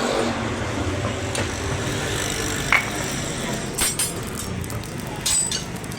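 Steady workshop noise with several short, sharp metallic clinks, one near the middle and another near the end.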